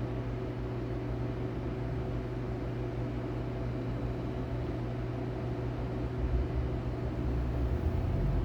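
Steady machine hum with a constant low electrical drone. A deeper low rumble builds from about six seconds in.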